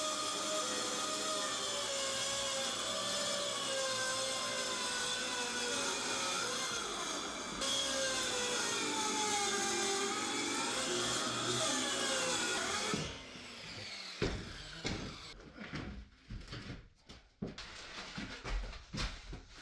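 Power saw cutting wood, its motor pitch sagging and recovering under load, shutting off about 13 seconds in; scattered knocks and clatter of handling wood follow.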